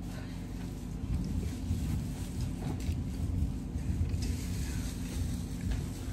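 A steady low rumble that grows a little louder and more uneven about a second in, with a few faint clicks on top.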